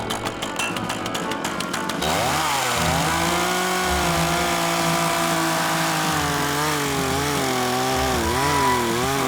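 Small two-stroke engine running. After an abrupt change about two seconds in, its pitch wavers up and down as the speed changes.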